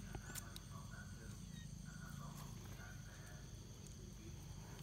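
Quiet outdoor background: a steady low hum with faint, thin, high steady tones like insects, and a couple of light clicks about half a second in.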